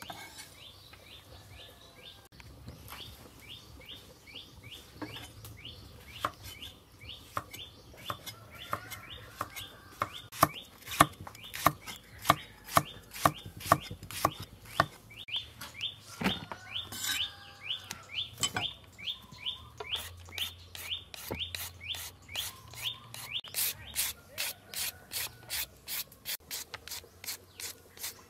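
A kitchen knife slicing green tomato on a wooden chopping board, in a run of sharp strokes that is loudest in the middle. It is followed by rapid, even rasping strokes of carrot and green papaya being shredded, about two a second, near the end. A bird chirps repeatedly in the background.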